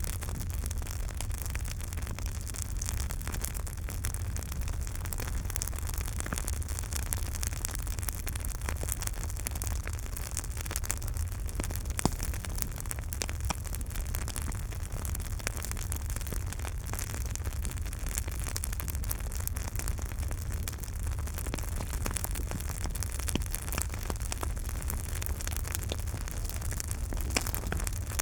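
Campfire burning: a steady low rumble with many small crackles and pops, and one louder pop about twelve seconds in.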